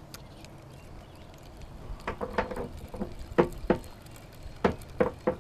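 A run of irregular light knocks and taps, starting about two seconds in, with a quiet stretch before them.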